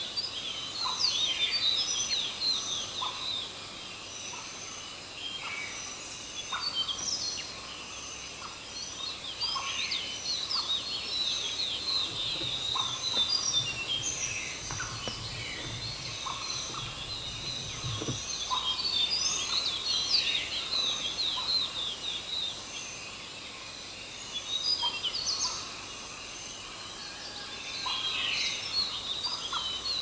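A flock of small birds chirping and chattering together, with many short, quick calls overlapping in busy bursts separated by brief lulls.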